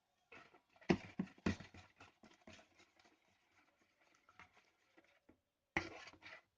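Irregular knocks, taps and rustles of handling noise, loudest about a second in and again in a short cluster near the end.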